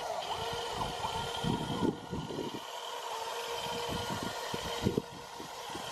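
A small motor hums steadily, with irregular knocks and bumps scattered throughout.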